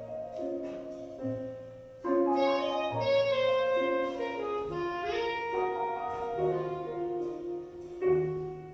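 Instrumental music with long held melody notes over lower bass notes; it fades briefly about two seconds in, then swells back.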